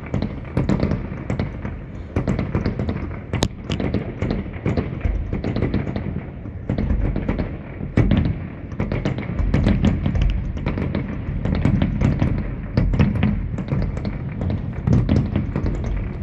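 Fireworks display going off: a rapid, irregular run of bangs and crackles over low rumbling booms, with no break.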